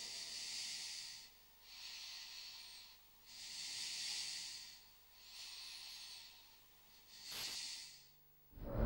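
Five soft, breath-like hissing swells, each rising and fading over about a second, with short gaps between them. Loud music with plucked strings starts up just before the end.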